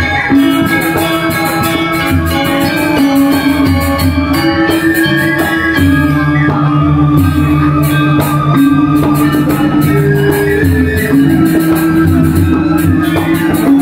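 Balinese gamelan playing: ringing, sustained metallophone tones over a low drone, with a fast, even metallic beat on top.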